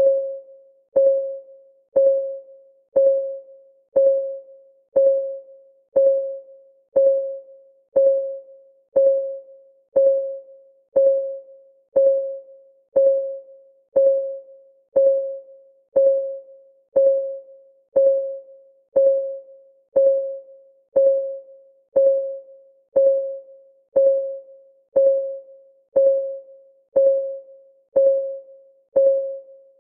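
Countdown timer's ticking sound: a short, pitched tick exactly once a second, each with a sharp start and fading within half a second, perfectly regular.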